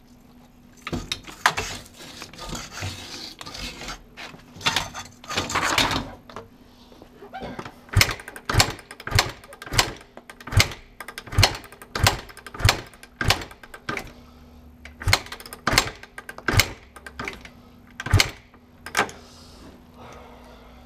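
2009 Kawasaki KX250F's four-stroke single-cylinder engine being kick-started over and over on its first start after new valves: a rapid series of sharp strokes as the engine is spun over, about one every two-thirds of a second in the second half. The engine turns over but does not catch into a steady idle.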